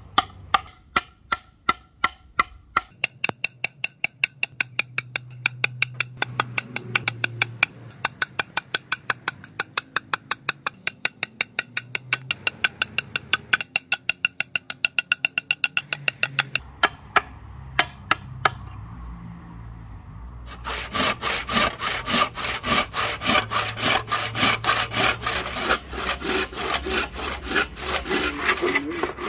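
A machete chopping into a rosewood axe-handle blank, a steady run of sharp knocks about three a second. After a short pause about two-thirds of the way in, a handsaw rips through the rosewood board in fast, even strokes.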